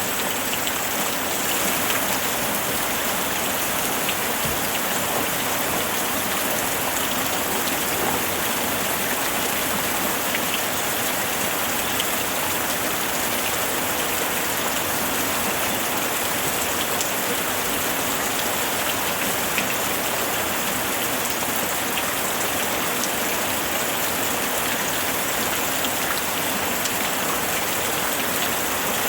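Steady, even rainfall pattering on surfaces, with faint scattered drop ticks.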